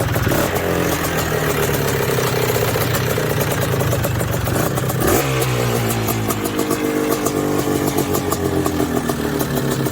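Engine running and revving, its pitch shifting about five seconds in; it cuts off abruptly.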